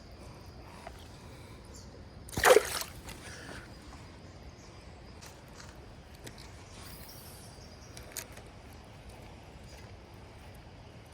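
One short splash in creek water about two and a half seconds in, over the steady faint rush of the creek.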